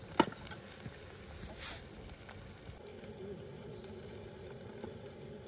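Faint outdoor ambience with a pigeon cooing low and softly in the second half. A single sharp click sounds just after the start.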